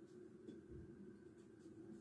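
Near silence: steady low room hum, with a soft thump about a second in and a few faint ticks near the end from a knife cutting a raw potato held in the hand.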